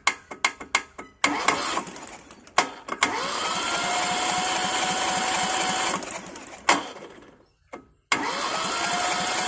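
Kubota Z600 two-cylinder diesel being turned over by its starter motor in two bursts. The first lasts about four and a half seconds and the second starts near the end. In each, the starter whine rises in pitch and then holds steady. The engine does not fire: the injector lines are off and the cranking is only to see whether the injection pump pushes fuel up. A few sharp clicks come before the first burst.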